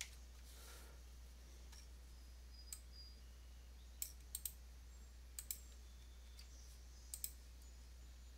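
Scattered clicks of a computer mouse and keyboard, several in quick pairs, over a faint steady low hum.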